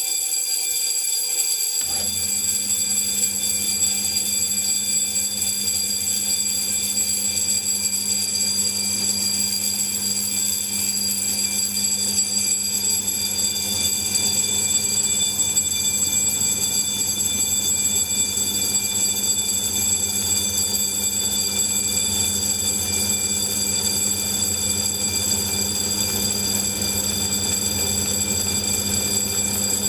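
Electric gong bell ringing continuously inside a glass bell jar. About two seconds in, a vacuum pump's motor starts and hums steadily, drawing the air out of the jar.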